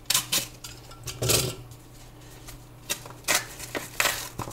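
Snap-off utility knife slitting a small postal packet open, then the packet rustling and crinkling as hands pull it apart. It comes as a string of short, sharp scrapes and crackles, thickest in the last second or so.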